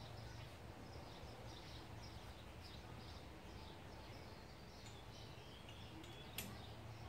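Faint, repeated bird chirps, about two a second, over low steady background noise, with a single sharp click about six seconds in.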